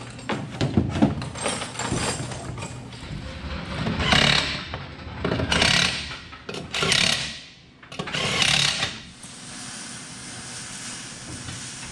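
Cordless impact wrench on a race car's wheel nuts, rattling in four short bursts of about half a second to a second each, a little over a second apart. Lighter knocks and clatter come before the bursts.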